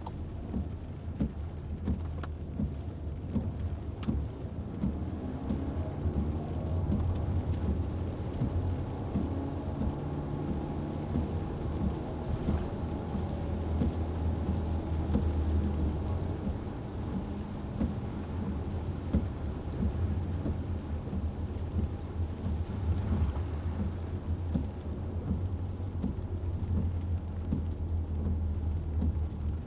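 A vehicle driving in the rain: a steady low road-and-engine rumble with rain pattering and ticking on the vehicle.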